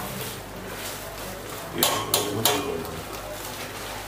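Metal spatula stirring food in a frying pan, scraping, with three sharp clanks against the pan in quick succession about two seconds in.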